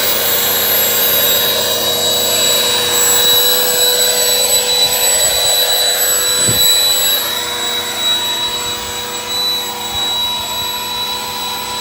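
Electric air pump, powered from the car, running steadily with a constant motor whine and rush of air as it inflates a large inflatable camel float.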